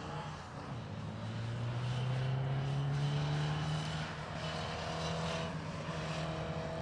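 Classic Mini's four-cylinder A-series engine pulling hard through the gears, its pitch rising over the first few seconds and then holding fairly steady as the car turns through the cones.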